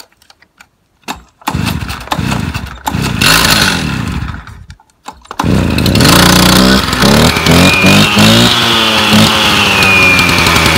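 Stihl TS350 cut-off saw's two-stroke engine being pull-started from cold. It catches about one and a half seconds in and runs for about three seconds, then stops. It starts again about five and a half seconds in and keeps running, its revs rising and falling.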